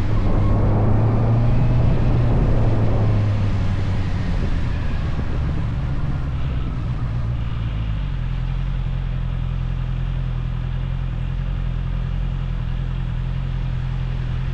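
Motorcycle engine running, the sound easing in the first few seconds and then settling to a different steady note about eight seconds in.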